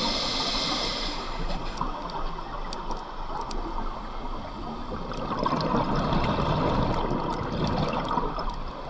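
Scuba diver breathing through a regulator underwater, heard through the camera housing. A hissing inhale ends about a second in. Then, from about five seconds in to near the end, exhaled bubbles gurgle louder.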